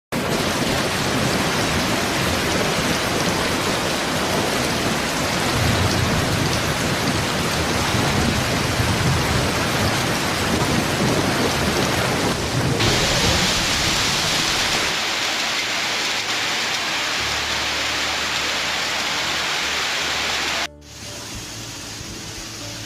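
Heavy rain pouring in a storm: a dense, loud hiss with a low rumble in the first half. About 13 s in it switches abruptly to a brighter, harsher rain hiss. Near the end it drops suddenly to a much quieter steady hum.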